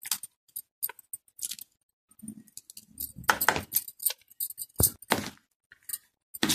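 Glass bangles clinking and jingling on the wrists while green chillies are cut by hand with a small knife, with irregular light clicks and two duller, louder knocks in the middle.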